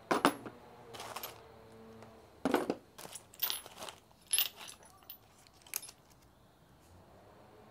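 Metal hand tools and hardware clinking and knocking against metal, a handful of separate sharp clinks during work on a motorcycle exhaust header.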